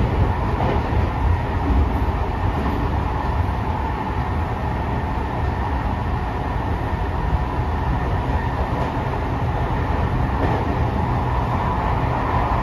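Running sound inside a Tokyo Metro 05 series electric train carriage moving at speed: a steady rumble of wheels on rails.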